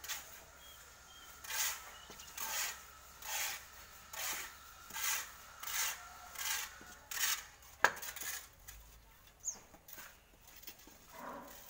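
Shovel scraping into a pile of sand in a steady rhythm of about one stroke a second, some eight strokes, then easing off. A single sharp knock comes about eight seconds in.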